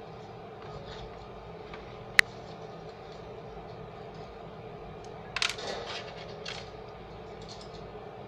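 Small hard objects being handled on a stained-glass workbench: one sharp click about two seconds in, then a short clatter of several knocks around five and a half seconds and another light tap a second later, over a steady hum.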